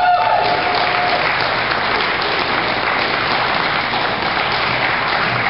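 Audience applauding steadily to welcome a comedian on stage, with one voice holding a single note for about the first second.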